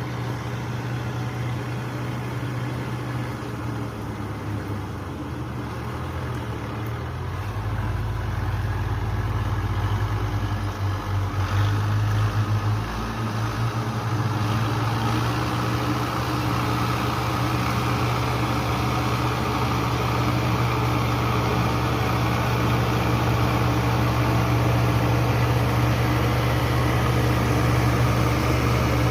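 A farm machine's engine running steadily. It picks up and grows louder about seven seconds in, wavers for a few seconds, then holds steady at the higher level.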